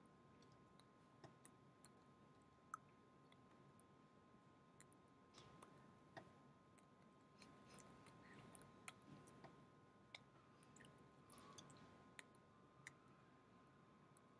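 Near silence: faint room tone with a steady low hum and scattered small clicks.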